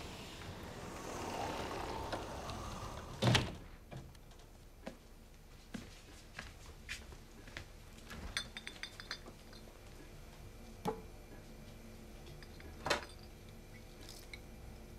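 Quiet handling sounds in a small kitchen: a single loud thunk of a door about three seconds in, then scattered small clicks and knocks, a short rattle of clinks near the middle, and two more single knocks later on.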